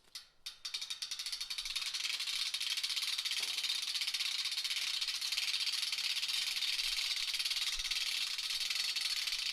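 A few separate clicks, then from about a second in a steady, very rapid mechanical rattling of many clicks a second, which holds level throughout.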